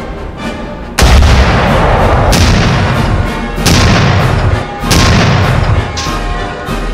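Tannerite explosive inside pumpkins set off by a rifle shot: a sharp boom about a second in, followed by four more booms about every 1.2 s, each trailing off. Background music runs underneath.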